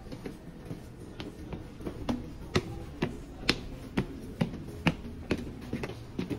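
Footsteps on concrete stairs, a sharp step about twice a second, with background music underneath.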